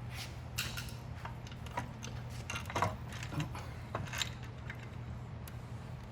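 Scattered light metallic clicks and knocks of engine parts being handled and fitted, over a steady low hum.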